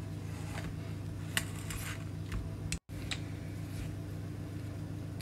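Metal spoon pressing and scraping sticky oat flapjack mixture into a metal baking tin, with a few light clicks of the spoon against the tin, over a steady low hum. The sound cuts out briefly a little under three seconds in.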